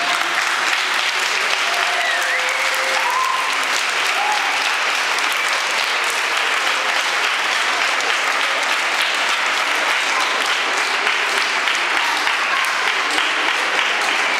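Congregation clapping steadily, a sustained round of applause that echoes in a stone church, with a few voices faintly heard over it.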